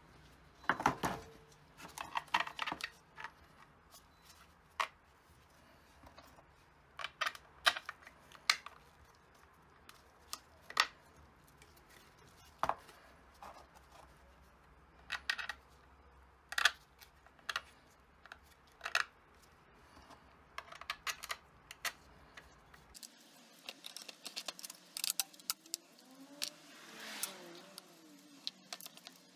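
Hard 3D-printed plastic parts being handled and fitted together: scattered sharp clicks and knocks of plastic on plastic and on the bench. A longer scraping sound comes near the end.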